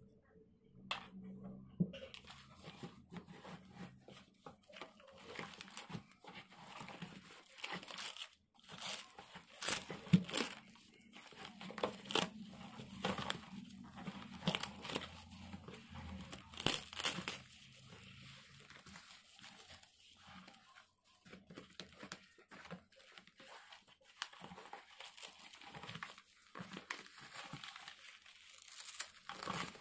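Clear plastic wrapping crinkling and rustling as hands handle plastic-wrapped blocks in a cardboard box: irregular crackles and rustles throughout, the sharpest about ten seconds in.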